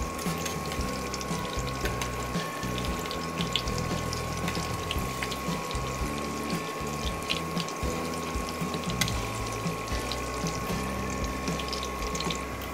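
Cauliflower kofta balls deep-frying in hot oil: a steady sizzle with many scattered small crackles and pops. A thin steady tone runs underneath.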